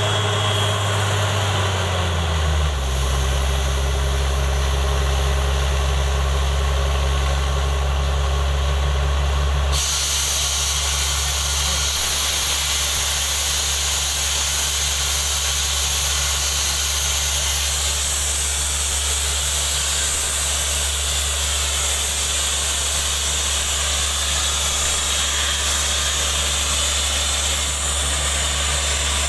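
Truck-mounted borewell drilling rig running: a deep, steady engine drone that drops in pitch about two and a half seconds in. About ten seconds in, a loud, steady rushing hiss starts suddenly: high-pressure air blowing water and mud out of the borehole.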